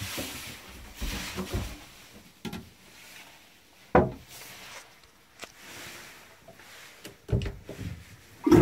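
Handling knocks, clunks and rubbing in a yacht's small toilet compartment, with a sharp knock about four seconds in. Louder clunks come near the end as a hand works the marine toilet's flush control lever.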